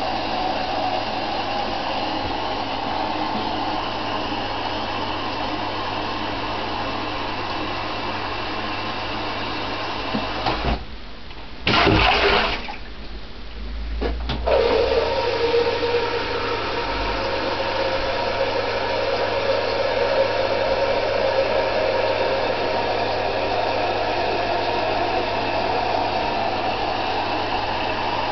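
Shower head spraying water into a plastic measuring jug. About ten seconds in the flow stops for a few seconds, with a loud knock in the gap, then the shower runs into the jug again.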